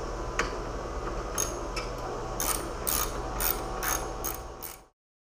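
Ratchet wrench clicking in short strokes while a factory bolt is backed out, over a steady low hum; the sound cuts off abruptly near the end.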